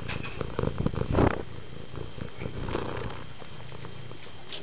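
A tabby house cat purring right up against the microphone, swelling louder about a second in.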